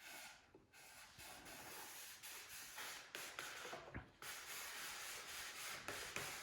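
Carbon wing spar being slid into place in a model jet's airframe: faint, continuous rubbing and scraping, with a brief break about four seconds in.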